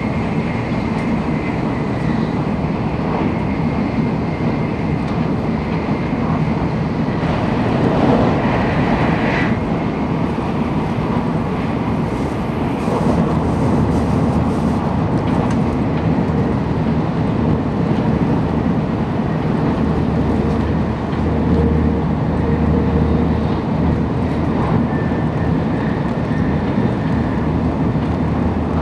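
Nozomi Shinkansen bullet train running at speed, heard from inside the passenger car: a steady low rumble of wheels and rushing air, briefly louder about eight seconds in.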